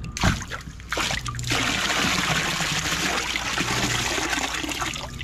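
Water poured from a white plastic box into a plastic basin of water: a knock just after the start, a few splashes, then a steady splashing pour from about a second and a half in that stops near the end.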